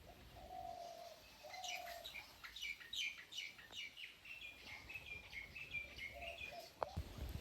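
Birds calling: two short low hooting notes, then a quick series of sharp falling chirps and a run of rapid high notes.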